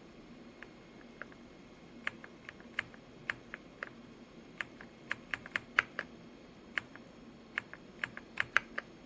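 Typing on a YUNZII X98 wireless mechanical keyboard with pre-lubed switches: irregular sharp keystroke clicks, a few at first, then quicker runs of keypresses.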